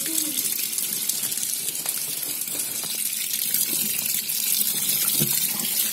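Water running steadily into the wash tub of a Polytron twin-tub washing machine that is loaded with clothes, filling it.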